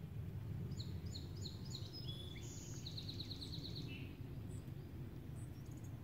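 A songbird singing one song: four quick falling high notes, a few varied notes, then a fast trill ending in a short buzz, with faint chirps later. A steady low rumble runs underneath.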